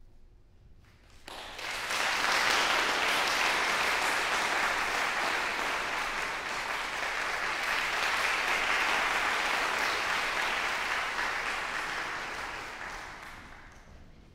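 Audience applauding in a reverberant hall: the clapping breaks out suddenly about a second in, holds steady, then dies away near the end.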